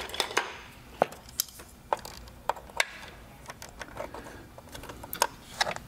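Pliers and wire cutters being handled and set into plastic tool-holder pegs in a metal toolbox drawer: scattered light clicks and knocks, about a dozen spread irregularly over the few seconds.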